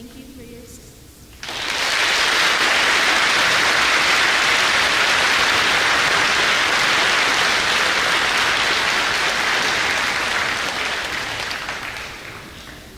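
Audience applauding: it starts suddenly about a second and a half in, holds steady, and dies away near the end.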